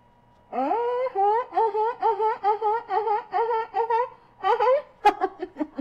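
A woman's high-pitched, wordless vocalizing with food in her mouth. It opens with a rising glide and runs into a quick string of short pitched "mm" sounds, about four a second, like muffled laughter. Near the end come a few sharp mouth clicks.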